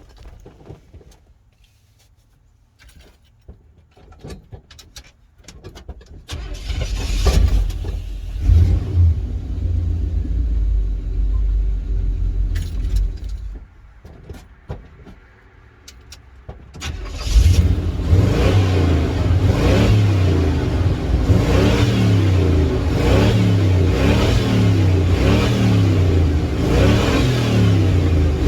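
Pickup truck engine, which the owner says needs a head gasket and has a rod knock. After a few faint clicks it runs, eases off near the middle, then is revved up and down over and over, about once a second.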